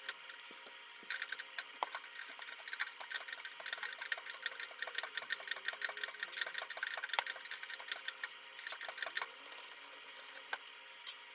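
Rapid metallic clicking and rattling as a 5/8 inch open-end wrench works the compression nut of a plastic supply line off an old shutoff valve, for several seconds, then quieter handling with one sharp click near the end.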